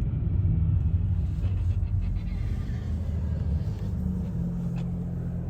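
Car running: a steady low engine and road rumble whose pitch steps up about four seconds in.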